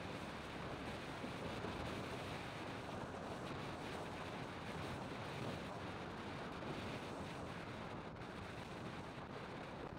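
Steady wind rushing over the microphone of a vehicle travelling along a road, with road noise underneath.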